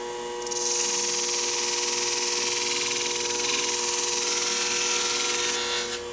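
A flat hone shear-sharpening machine's motor hums steadily while a shear blade is ground against its spinning disc for about five seconds, giving a loud, even, high hiss that starts about half a second in and stops near the end. The grinding puts a blunter micro bevel on the blade edge at about 42 degrees.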